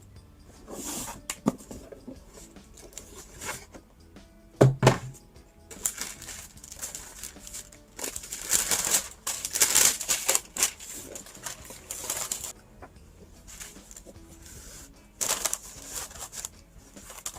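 Packaging paper rustling and crinkling in irregular bursts as a gift box and its wrapping are opened, busiest from about six to twelve seconds in. A single low thump about five seconds in is the loudest sound.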